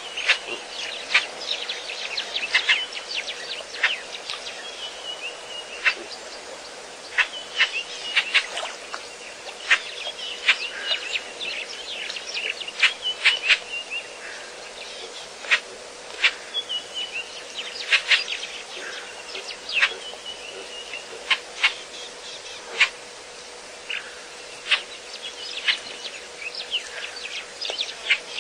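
Outdoor chorus of many birds giving short, sharp chirps in quick irregular runs, over a steady insect buzz and a faint unchanging tone.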